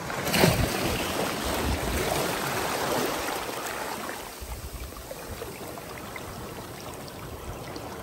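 Water splashing and trickling in a shallow rock pool, louder for the first few seconds and then settling.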